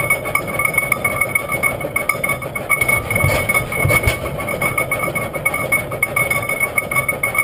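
1908 Hart-Parr 30-60 tractor's two-cylinder engine running at a slow idle with an uneven chugging, two sharp firing beats about a second apart standing out midway through.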